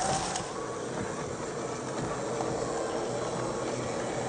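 Electric motor and gear drivetrain of a 1/10-scale RC4WD Trail Finder 2 crawler running, a steady whine under a noisy hiss.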